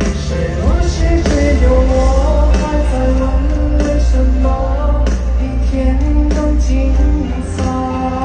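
Live pop-rock concert music: a band with heavy bass and drums under a sung melody.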